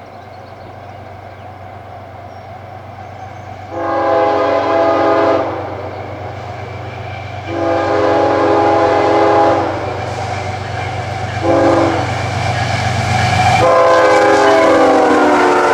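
CSX diesel locomotive's multi-chime air horn sounding the grade-crossing pattern: two long blasts, a short one, then a long one whose pitch drops as the locomotive passes. The diesel's low rumble runs underneath.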